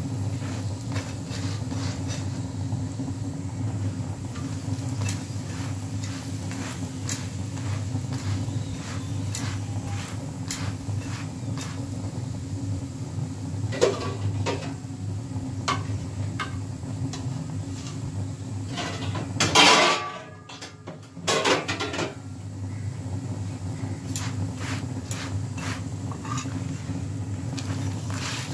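Paratha cooking on an iron tawa: a steady low hum runs under scattered light clicks and crackles, with a louder clatter of metal tongs against the tawa about two-thirds through.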